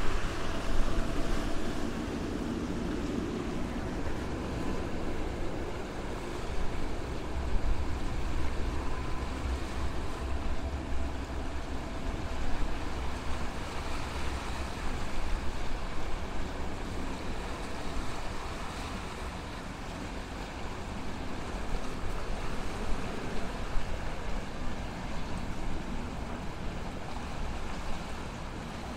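Sea waves washing against the rocky shore in a steady rushing wash, loudest right at the start, with wind rumbling on the microphone.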